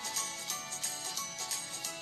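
Background music with a steady beat and a bright, jingling top.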